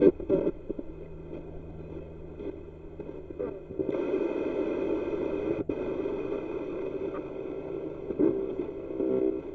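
Spirit box sweeping through radio stations: a continuous hiss of static laced with steady tones, broken by a few short clicks. It gets louder about four seconds in.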